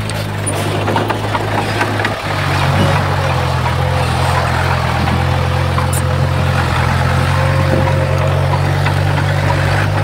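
Diesel engine of heavy earthmoving machinery running steadily, its note stepping up and getting louder about two seconds in.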